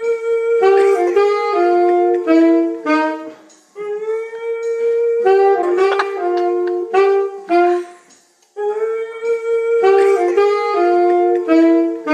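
A saxophone plays the same short phrase three times, with brief breaks between the phrases, while a small dog howls along.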